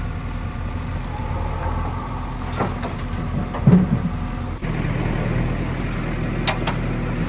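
Heavy diesel engine running steadily, with a few short metallic clanks and knocks around the middle. The engine note changes abruptly about two-thirds of the way through.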